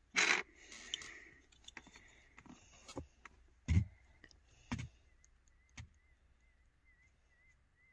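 A few dull knocks of plastic stacking pegs being handled on a pegboard, then, from about five seconds in, a faint high warbling tone repeating steadily: a warble tone of the kind an audiometer plays in a hearing test.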